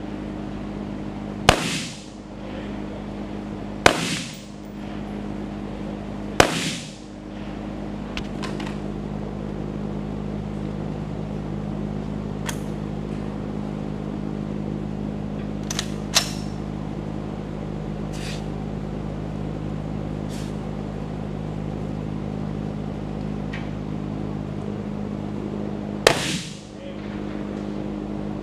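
Gunfire at an outdoor range: three loud close shots in the first seven seconds and one more near the end, each followed by a short echoing tail, with scattered fainter shots between them. A steady low hum runs underneath.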